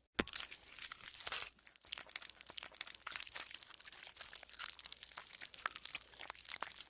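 Green slime being squeezed and worked by hand, giving a dense run of small crackling pops and squelches. A sharp louder pop comes just after the start.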